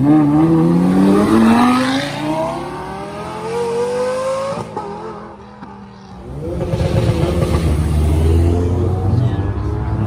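A car engine accelerating, its pitch rising steadily for about four seconds before it fades away. About six seconds in, a deeper, louder engine rumble comes in and holds a fairly steady pitch.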